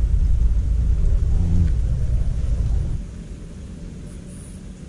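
Low rumbling noise on the microphone that drops off abruptly about three seconds in, leaving a quieter steady outdoor background.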